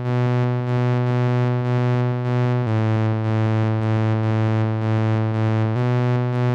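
Moog Messenger analog synthesizer holding a sustained low note rich in overtones, with a slight regular pulse. The pitch steps down about a third of the way in and back up near the end.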